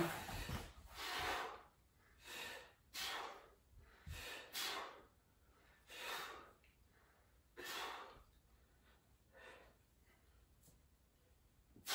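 Short, noisy breaths in and out, about ten of them with quiet gaps between, from a person exerting through one-arm dumbbell rows.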